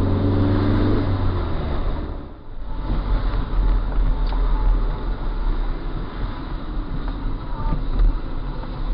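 Car running through traffic heard from inside the cabin: a steady low engine rumble with tyre hiss on a wet road. The sound dips briefly about two and a half seconds in.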